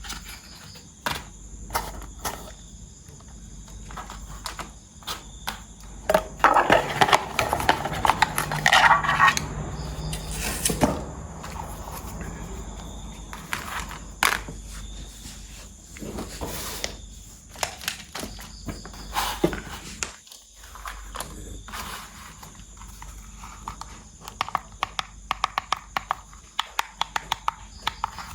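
Plastic toy parts and packaging being handled: scattered clicks and taps, a stretch of crinkling a few seconds in, and a fast run of small clicks near the end.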